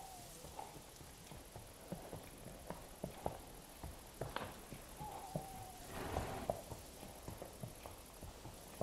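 Night forest ambience recording: a steady, pulsing high insect trill, with scattered light clicks and rustles. About five seconds in, a single held animal call sounds, falling slightly at its end.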